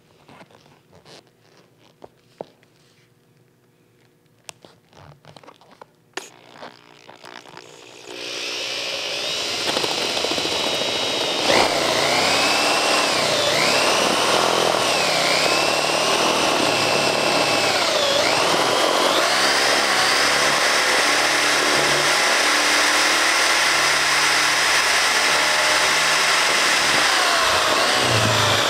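A few faint clicks, then about eight seconds in a power drill starts up and bores into a stack of paperback books, its whine dipping in pitch several times as the bit bites into the paper.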